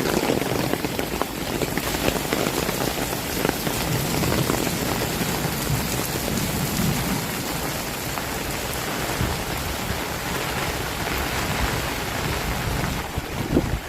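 Heavy rain falling steadily: a dense, even patter of drops over a low rumble.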